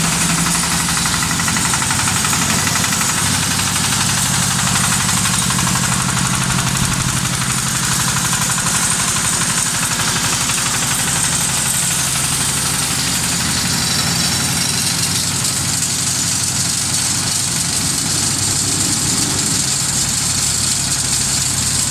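Hydraulic silage baler running, its engine driving the machine with a steady, even hum and rapid pulsing.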